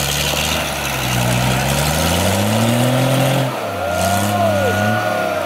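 Off-road 4x4's engine revving hard, its pitch climbing for a couple of seconds, then dropping sharply about three and a half seconds in before it picks up again, with a brief higher whine on top near the end.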